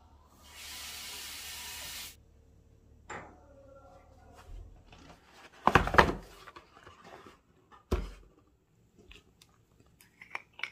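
Tap water runs into the kitchen sink for about a second and a half, then stops. Cardboard toothpaste boxes are set down and handled on a table with a few knocks, the loudest about six seconds in and another about two seconds later. Near the end there are small clicks as the plastic screw cap is twisted on a toothpaste tube.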